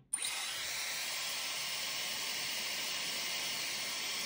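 Handheld hot-air blower running steadily: a smooth, even rushing of air that comes on just after the start. It is heating the edges of the phone's display to soften the screen adhesive.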